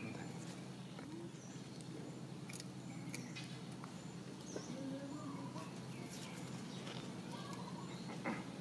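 Quiet outdoor background: scattered faint bird chirps and small clicks and rustles over a steady low hum.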